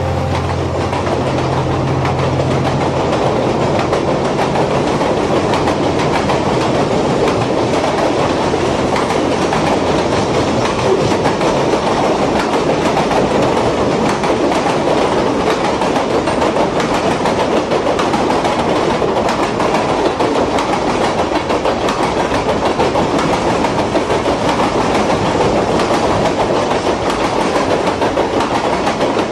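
Steady rattle and clickety-clack of a train's wheels running over rail joints.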